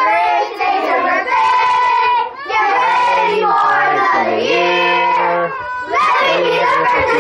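A group of children singing together, in about four long held phrases with brief breaks between them.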